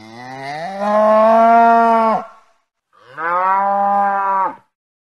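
Young Holstein-Friesian cattle mooing twice: a long moo that slides up in pitch and then holds steady, ending a little after two seconds in, and a second, shorter moo at an even pitch about a second later.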